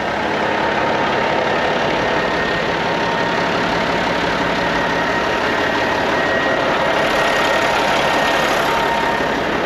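Steady engine noise of an idling truck, even and unchanging throughout, with a faint steady whine over it.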